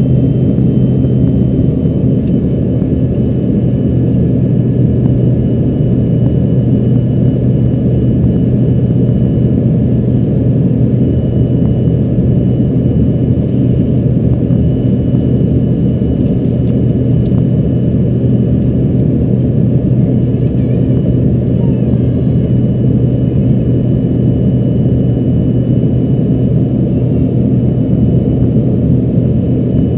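Steady cabin noise of an Embraer ERJ-145 regional jet with its two Rolls-Royce AE 3007 turbofans running: a loud, even rush with a constant low hum and faint high steady whines, holding at one level throughout.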